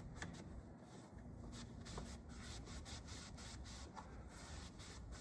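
Faint, uneven scrubbing and wiping on the janitorial cart, working off caked-on grime, with a few light knocks.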